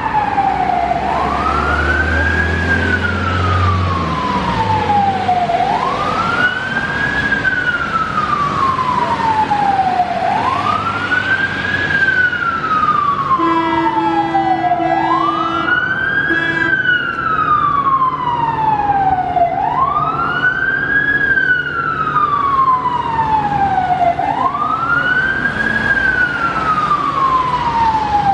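Fire engine's siren wailing: each cycle rises quickly in pitch and then falls slowly, repeating about every four and a half seconds. About halfway through come three short horn blasts.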